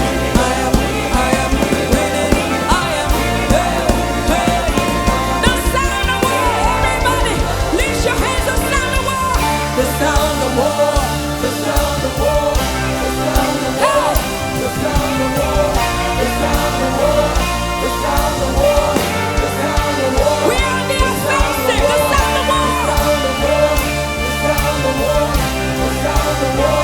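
Music with singing: a wavering sung melody over a full band with a steady, sustained bass.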